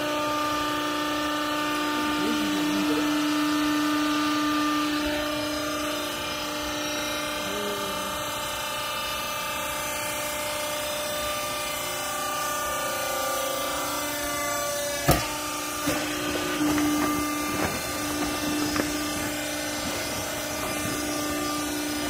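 Hydraulic power unit of a vertical used-clothes baler running with a steady hum while the machine goes through its cycle. A sharp metallic clunk sounds about fifteen seconds in, followed by a few lighter knocks.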